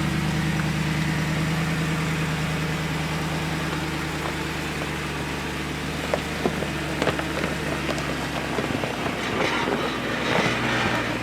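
Off-road vehicle's engine running steadily at low revs while crawling up a rock wall, with its pitch shifting about eight and a half seconds in. A few sharp clicks come around six to seven seconds in.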